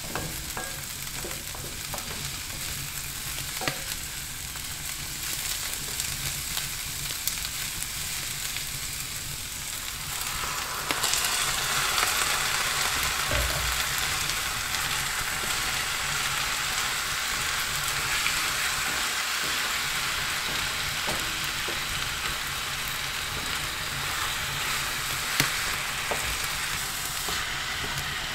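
Food sizzling in a frying pan as it is stirred, with a few light knocks from the utensil. The sizzle grows louder and brighter about ten seconds in.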